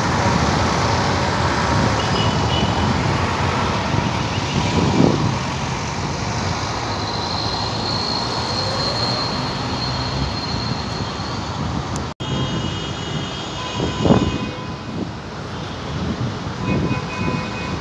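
Steady street traffic noise, with an Alexandria Raml tram rolling away along the track. A thin high whine comes and goes a little before the middle, and there are a couple of louder bumps, the second about fourteen seconds in.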